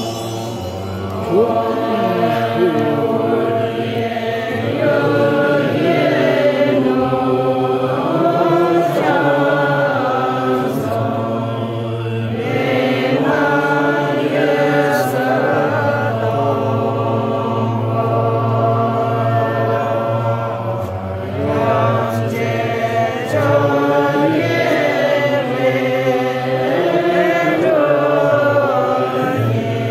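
A congregation of men and women chanting Buddhist prayers together from prayer texts, many voices in unison over a steady low undertone.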